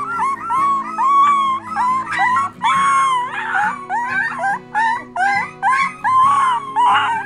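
Three-week-old beagle puppy howling in a rapid run of short, high howls, two or three a second, over soft background music.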